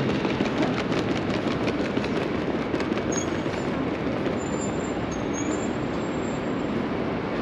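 A train running by, its wheels clicking in a quick even rhythm over the rail joints, then a thin high squeal of the wheels from about halfway through.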